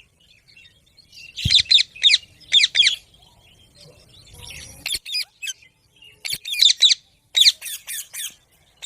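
Pet green parrot squawking in short, harsh calls that come in quick groups of three or four: about a second and a half in, again around five seconds, and twice more near the end.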